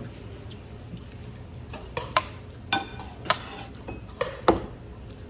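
Metal spoon clinking and scraping against ceramic dishes during a meal: a run of sharp clinks starting about a second and a half in, some ringing briefly.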